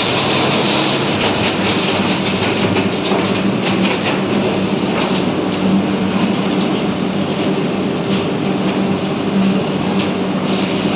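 Electric arc furnace running: a loud, steady roar of the arcs with irregular crackling and a steady low electrical hum underneath.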